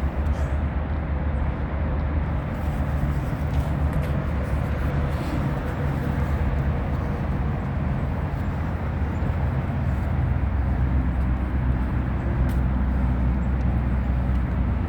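Steady rumble of highway traffic.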